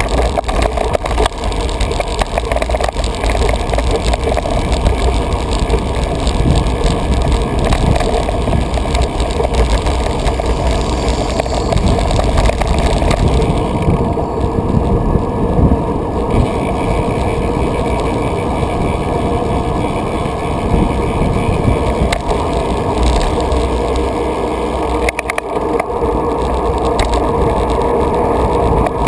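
Wind rushing over a GoPro's microphone and the bike rattling over the pavement while riding, a steady loud rumble with frequent small knocks.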